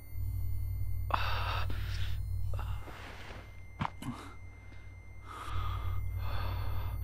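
A man's heavy, gasping breaths, two long ones a few seconds apart, each over a deep low rumble. Two short sharp clicks fall between them.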